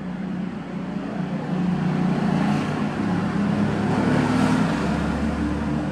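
Steady hum of a motor vehicle engine running, getting louder over the first two seconds and then holding.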